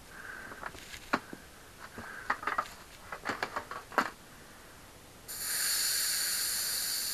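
Small clicks and knocks of hands working a bicycle tyre and tube onto the rim. Then, a little past five seconds in, a steady hiss of air through the inner tube's valve.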